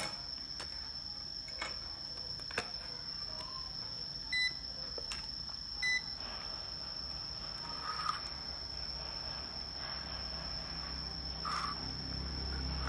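UNI-T UT136C+ digital multimeter giving two short beeps about a second and a half apart, among a few light clicks of probes and handling. A steady high-pitched whine runs underneath throughout.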